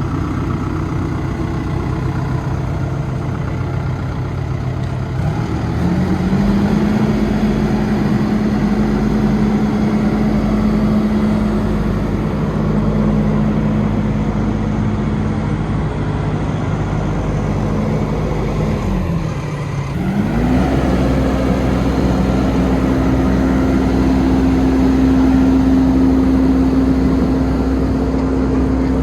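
Wirtgen W 50 DC cold milling machine's diesel engine running. Its speed rises about six seconds in and holds steady, then sags briefly about two-thirds of the way through before climbing to a higher, steady speed.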